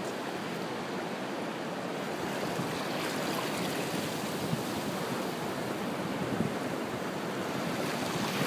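Steady rush of surf on the beach, mixed with wind, with no distinct events.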